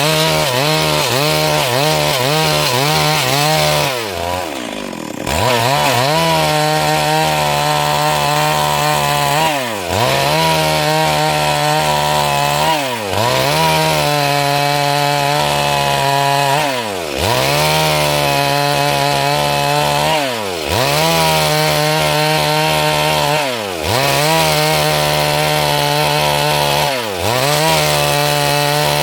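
Stihl MS 382 two-stroke chainsaw ripping lengthwise through a Siris log to cut boards, run at high revs. About every three to four seconds the engine pitch dips sharply and climbs straight back. About four seconds in, the revs fall away for about a second before it throttles up again.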